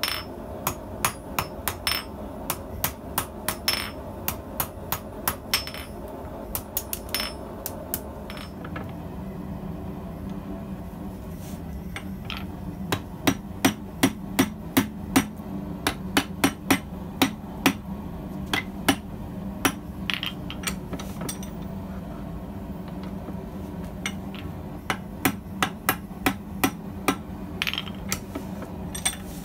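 Hand hammer striking hot steel, first on the anvil and then on the piece clamped in a leg vise: sharp blows in runs of about two to three a second, with short pauses between runs. A steady hum runs underneath.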